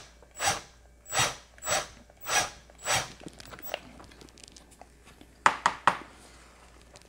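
Power drill run in five short bursts, about two-thirds of a second apart, its 5/32-inch bit grinding into the rivet head of a die-cast toy car to break the head off. Near the end, three quick sharp clicks.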